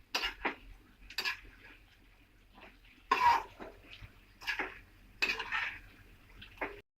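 Spoon scraping and knocking against a cooking pan in about half a dozen separate strokes, stirring veg meat chunks into a thick masala gravy.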